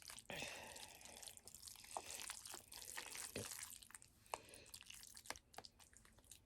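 Close-up wet mouth sounds of eating spaghetti in meat sauce: slurping with many small sticky smacks and clicks, fading about two thirds of the way through.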